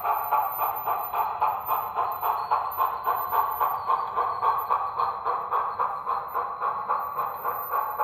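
Steam locomotive exhaust chuffing at a steady pace, about three chuffs a second, played by a Tsunami 2 sound decoder through the small speaker in an On3 model D&RGW locomotive.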